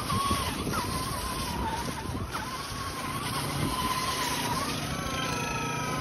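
RC truck's motor whining as it drives, the pitch wavering with the throttle and sweeping up and back down near the end. Under it is a hiss of the tyres running through slush.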